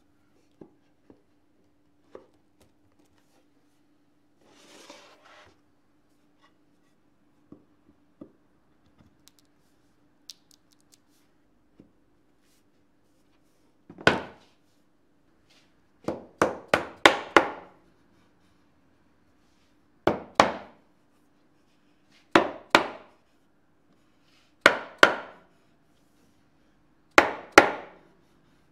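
Mallet knocking glued, domino-jointed wooden case corners together to close the joints: a string of sharp knocks on wood, singly, in pairs and once in a quick run of four, each a couple of seconds apart. Before them, only faint clicks and a short soft hiss.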